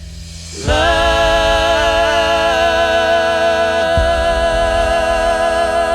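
Music: after a quiet lead-in, a singer holds one long sustained note with a slight vibrato over a steady accompaniment, starting just under a second in; the bass shifts about four seconds in.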